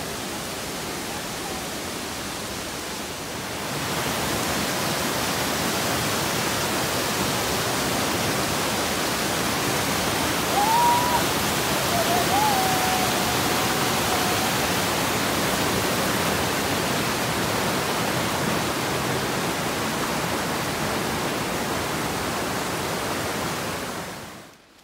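Steady rush of a mountain stream's water, louder from about four seconds in and cutting off suddenly just before the end. A short high call sounds near the middle.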